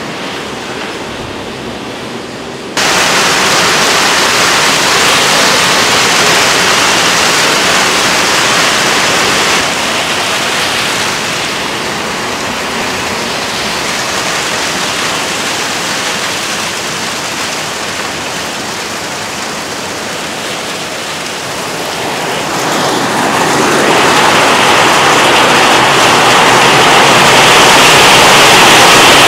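Heavy downpour of rain and hail: a steady rushing hiss that jumps sharply louder about three seconds in and swells again near the end.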